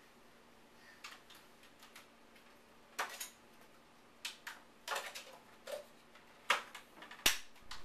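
Scattered light clicks and knocks, a second or so apart, of hard toys or fittings being handled, with the sharpest knock near the end.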